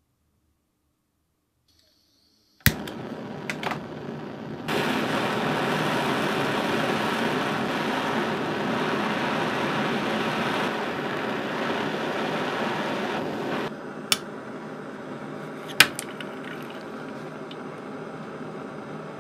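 A machine clicks on and runs with a steady noise; about two seconds later a loud, even rushing hiss of air starts, runs for about nine seconds and cuts off, leaving the machine running. A few sharp clicks or knocks sound over it.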